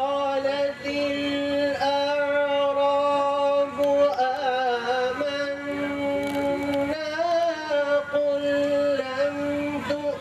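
A man reciting the Quran in melodic tajwid style into a microphone, drawing out long held notes whose pitch wavers and glides slowly between phrases.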